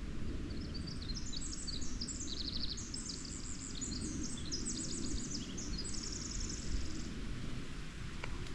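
A small songbird sings one long, high, rapid twittering song made of many quick trills and notes, lasting about six seconds, over a steady low rumble.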